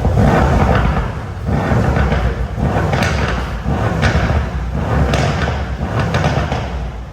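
Mercedes-AMG C63 S V8 running loudly just after start-up, its exhaust rumble swelling and easing with a few sharp cracks of factory burbles about three, four and five seconds in.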